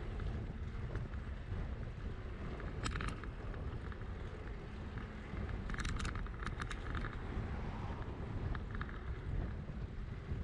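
Wind buffeting the microphone and a steady low rumble from a bicycle riding over pavement. A few sharp clicks come about three seconds in, and a quick cluster of them around six seconds.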